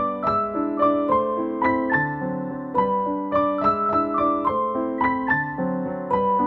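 Background piano music: a melody of single struck notes, about three a second, each fading after it sounds.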